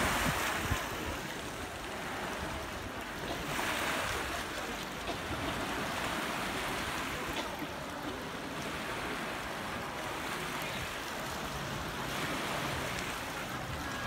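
Small sea waves washing onto a pebble beach, a steady wash that swells every few seconds as each wave comes in.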